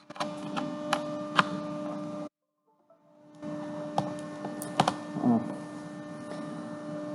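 Steady electrical hum with scattered sharp clicks of a computer mouse, about four in the first second and a half and a few more later. The audio cuts out completely for about a second partway through.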